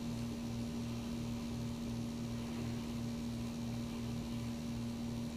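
Steady low hum with a fainter throb under it, pulsing about three times a second.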